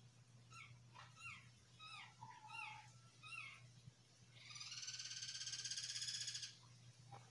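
Animal calls: a run of about six short, falling chirps, then a louder buzzing trill lasting about two seconds. A steady low hum runs underneath.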